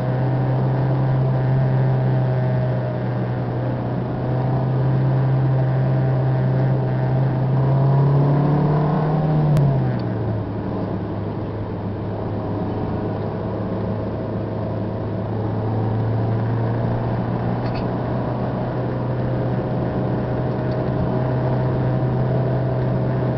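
Car engine droning steadily under road and wind noise, heard from inside the cabin at highway speed. The engine note climbs for a couple of seconds and then drops about ten seconds in, with a sharp click at that moment.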